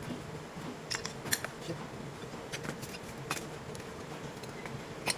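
Hand tools and small metal clutch-booster parts clinking and tapping: a scattering of short sharp clicks over a steady low hum.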